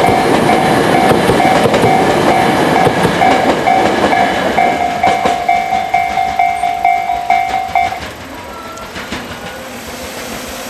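Commuter train running past with wheels clattering over the rail joints, while a railway level-crossing warning bell dings about three times a second. The bell stops about eight seconds in, and the train noise then drops away to a quieter rumble as the next train, a Tobu 50090-series, approaches.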